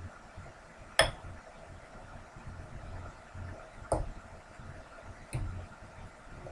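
Metal fork clinking against a ceramic bowl while scooping food, three times; the first clink, about a second in, is the loudest and rings briefly.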